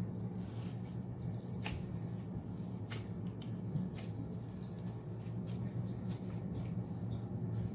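Minced meat being pressed by hand into eggplant on a plate: soft squishing with a few light clicks against the plate, over a steady low hum.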